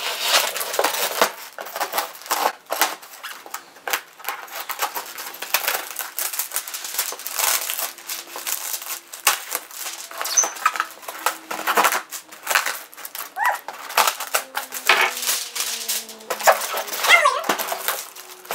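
Cardboard box and packaging of an airsoft rifle being opened and handled: rapid, irregular scraping, rustling and tapping, with a few short squeaks later on.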